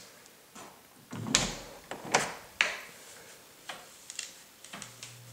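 A door being opened and handled: a run of sharp knocks and clicks, the loudest a little over a second in and two more around two seconds in. A steady low hum starts near the end.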